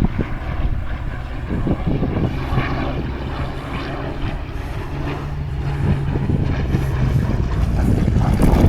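Hawker Hurricane's Rolls-Royce Merlin V12 aero engine running with a steady propeller drone, growing louder through the second half.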